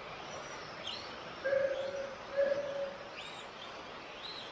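Electric radio-controlled touring cars racing on a carpet track, their motors giving brief high whines that rise and fall in pitch. Two steady half-second beeps about a second apart are the loudest sounds.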